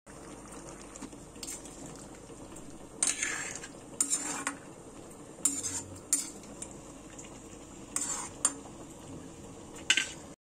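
Metal spoon scraping and knocking against a black iron wok while stirring a simmering curry, a series of sharp clinks a second or two apart over a steady low bubbling.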